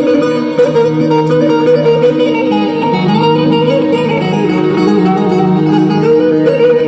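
Instrumental break of a Turkish folk song: plucked string instruments play a busy melody over steady held low notes.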